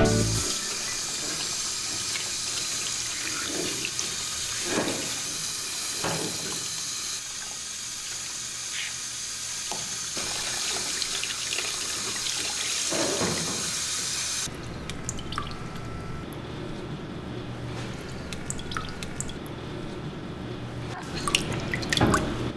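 Water from a handheld shower hose spraying onto a wet cat's fur and into a plastic bathtub, a steady hiss with splashing. The spray cuts off suddenly about two-thirds through, leaving small splashes and drips in the tub.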